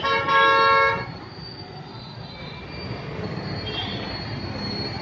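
A multi-tone vehicle horn blows once for just under a second, then gives way to a steady rumble of traffic.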